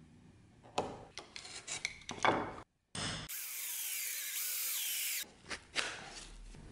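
A few short scratches and knocks, then an electric hand drill runs for about two seconds, its bit boring through a strip of leather laid on plywood, with a few knocks after it stops.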